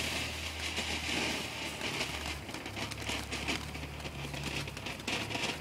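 Ground firework fountain hissing and crackling steadily as it burns, a dense run of fine crackles with no bang; this is a type that doesn't pop.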